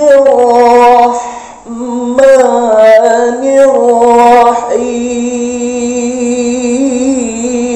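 A man's solo voice reciting the Quran in melodic qiroah (tilawah) style: two ornamented phrases with a short breath between them, then from about five seconds in a long held note that wavers in pitch.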